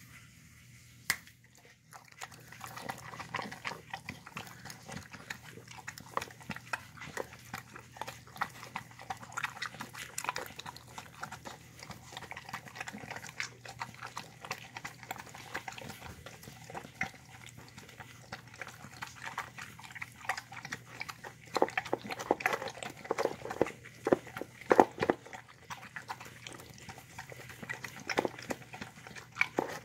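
Shar-pei–pit bull mix dog eating a moist mix of shredded chicken, vegetables and broth-cooked rice from a plastic bowl: a steady run of quick, wet chewing and mouth clicks, loudest in bursts about two-thirds of the way through and again near the end. A single sharp knock comes about a second in.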